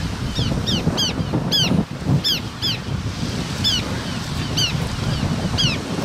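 Surf washing on the shore and wind buffeting the microphone, with a bird giving short, high, downward-slurred chirps in quick runs of two or three.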